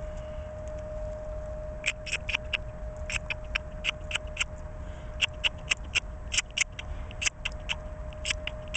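Newly hatched northern mockingbird nestlings begging: from about two seconds in, rapid clusters of tiny, short, high-pitched peeps, a few each second. A faint steady hum runs underneath.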